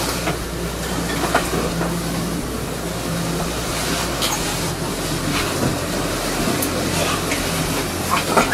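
Steady low rumble of a running vehicle, with a few faint clicks and knocks.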